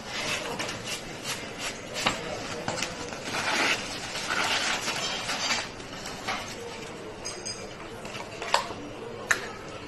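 A knife slicing through the baked crust of a pide on a wooden board, with scattered sharp knocks of the blade on the wood, two of them louder near the end, over kitchen clatter.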